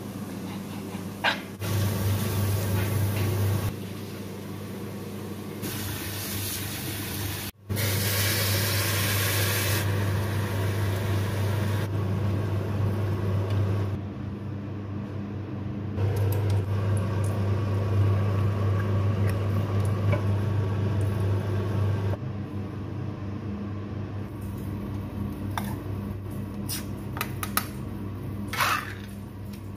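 A steady low hum with faint handling noise, stepping louder and quieter at several points. Near the end comes one sharp crack as the ring-pull lid of a metal food can is pried open.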